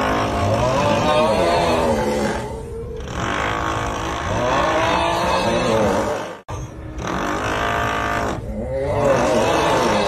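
The snoring meme sound: a long, drawn-out, groaning 'uuuuugghhh' voice that bends up and down in pitch, heard three times, over a steady drilling noise. The audio cuts out for an instant about six and a half seconds in.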